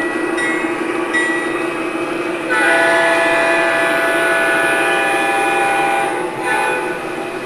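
MTH Premier O-gauge locomotive's onboard sound system: a bell ringing at first, then a long multi-tone horn blast starting about two and a half seconds in, followed by a short horn blast near the end, over a steady engine hum.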